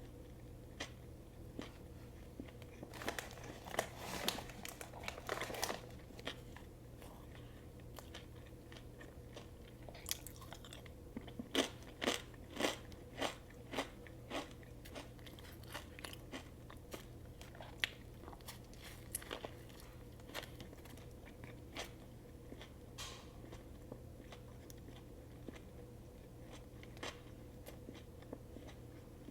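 Close-miked eating of a crunchy turkey sub: bites and chewing with crisp crackling crunches, in two busy stretches a few seconds in and about ten seconds in, sparser chewing between, over a faint steady low hum.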